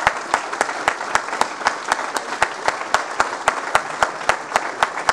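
Audience applauding, with one person's loud, steady claps close to the microphone at about four a second standing out from the crowd's clapping.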